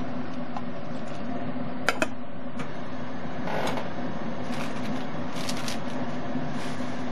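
Pot of noodles boiling on a high gas flame with a steady rushing. About two seconds in, two sharp metallic clinks as the aluminium lid is set on the aluminium pot, followed by a few softer clatters.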